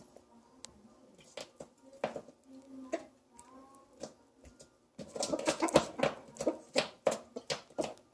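Chickens pecking at bones on a tile floor: the beaks and claws make sharp clicks, with soft clucking. The clicking grows much busier and louder from about five seconds in.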